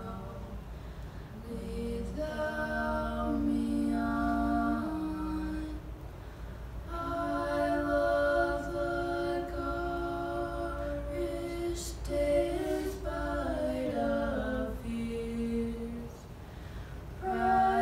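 A girl singing unaccompanied into a microphone: slow phrases of long held notes, with short pauses between phrases.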